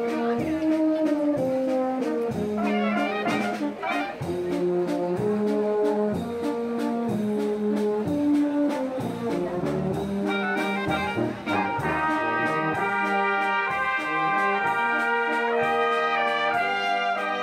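Alpine village wind band of brass and clarinets playing: tubas keep a steady beat-by-beat bass under the tenor horns' tune. About ten seconds in, higher voices come in with long held chords.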